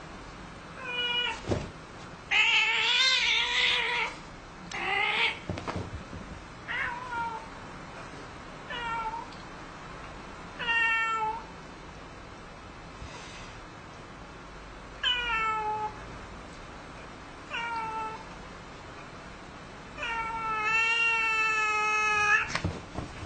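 Domestic cat yowling in a face-off with another cat: about nine drawn-out calls falling in pitch, the longest and loudest ones wavering, a few seconds in and again near the end.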